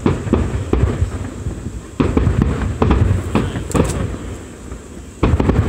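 Fireworks display: aerial shells bursting in quick succession, each bang followed by a low rumbling echo. There is a brief lull about four seconds in, then another volley of bursts near the end.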